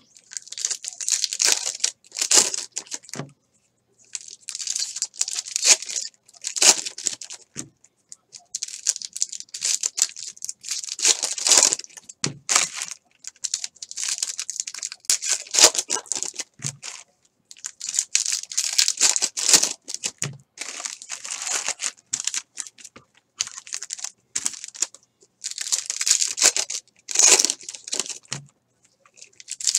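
Trading-card pack wrappers being torn open and crinkled by hand: a run of crackly tearing and crinkling, in a burst every few seconds with short pauses between.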